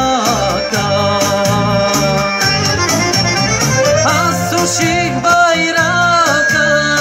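Live Bulgarian folk song heard through a PA: a male voice singing into a microphone over amplified band music, with a wavering, ornamented melody line.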